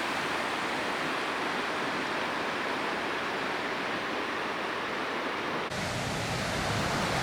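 Steady rushing water of a river falls. About six seconds in, the sound shifts to a deeper, fuller rush.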